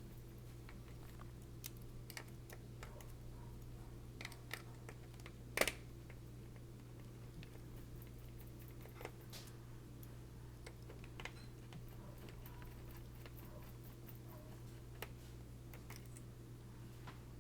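Scattered light clicks and taps from hands working on a Dell Studio 1730 laptop's keyboard and plastic parts, over a steady low hum. One sharper click comes about five and a half seconds in.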